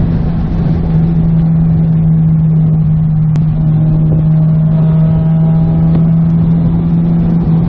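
Car engine running steadily at constant speed: a loud, even drone that holds one pitch, over road rumble.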